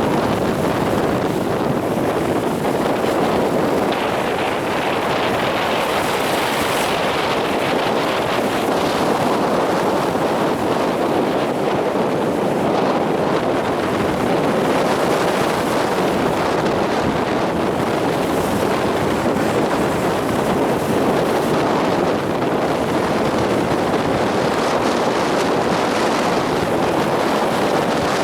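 Storm surf on the Sea of Azov breaking steadily onto the beach, under strong wind buffeting the microphone.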